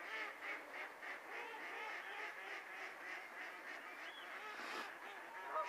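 A flock of ducks quacking continuously on a lake, many short calls overlapping into a steady chorus.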